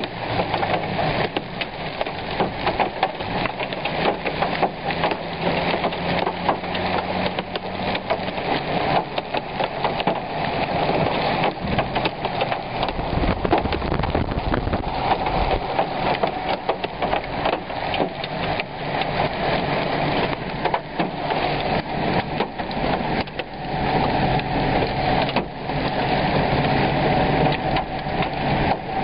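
Heavy rain pelting a car, a dense steady crackle of drops, with the car's engine idling as a low hum underneath.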